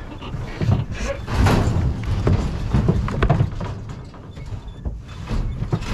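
Irregular knocks, bangs and rattles from the wooden-and-steel stock body of a cattle truck being loaded, heaviest in the first few seconds and quieter towards the end.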